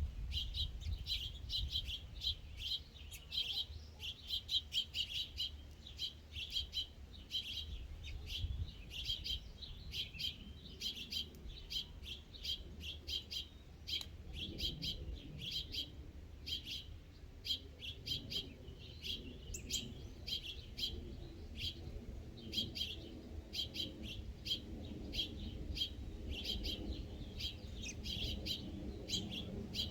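Small songbirds chirping, many short high chirps a second, with barely a break.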